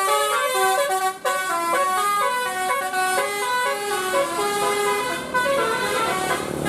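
Bus telolet horn playing a quick tune of stepped notes, heard from inside the bus cabin.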